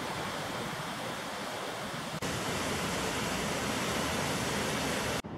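Parvati River rushing over boulders: a steady hiss of fast white water, a little louder after a short break about two seconds in.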